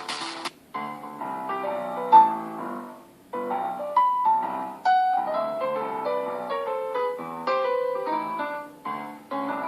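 A preloaded Samsung Galaxy Fold 4 ringtone playing from the phone's speaker: a melody of quick piano-like keyboard notes in short phrases with brief pauses. About half a second in, the previous electronic ringtone cuts off just before it.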